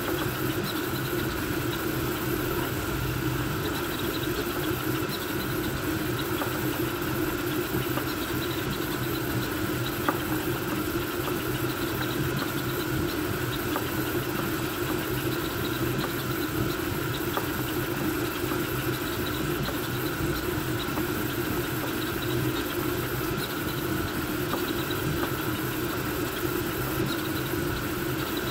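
Voron V2.4 3D printer running a fast print: a steady hum and whir of its stepper motors and cooling fans, with one faint click about ten seconds in.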